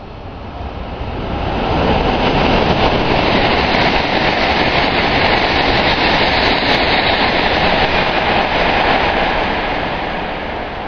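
Hokuriku Shinkansen E7/W7-series train running through the station at speed without stopping, a loud rushing noise of wheels and air. It builds over the first two seconds, holds steady, then fades near the end as the train clears the platform.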